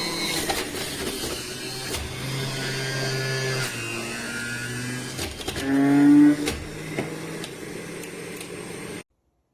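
Electric juicer motor running, its hum shifting in pitch as the load changes, with a louder rising whine about six seconds in; it stops abruptly near the end.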